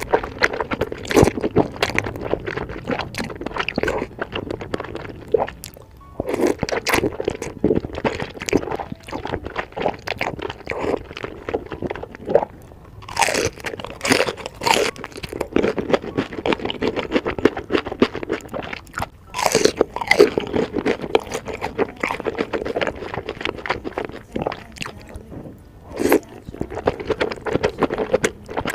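Close-miked mukbang eating sounds: noodles slurped off chopsticks in a spicy seafood sauce and crisp bites into battered fried shrimp, with steady chewing and wet mouth noises.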